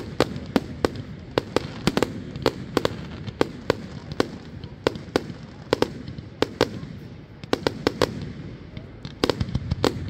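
Fireworks display: aerial shells bursting in a rapid, irregular series of sharp bangs, about two or three a second, over a continuous low rumble, with a quick cluster of bangs near the end.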